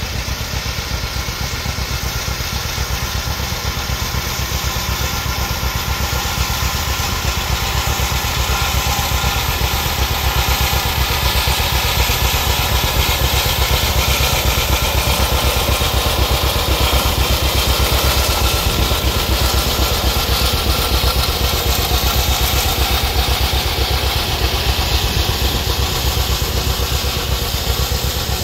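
1940 John Deere Model A tractor's two-cylinder engine running under way as the tractor drives past, with a rapid, even beat of firing strokes. It grows louder towards the middle as the tractor comes closest, then eases slightly as it turns away.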